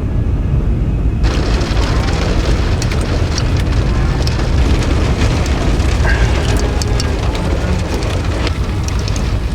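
Heavy rain hitting a vehicle, a dense hiss of many small ticking drops that comes in about a second in, over a loud, steady low rumble.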